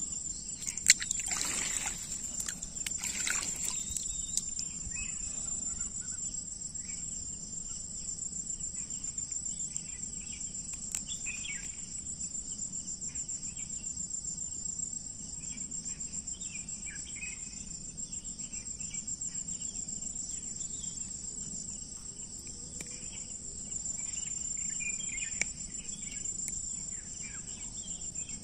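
Steady high-pitched chorus of insects buzzing without a break, with water splashing briefly about a second in and again around three seconds as hands work the net in the water.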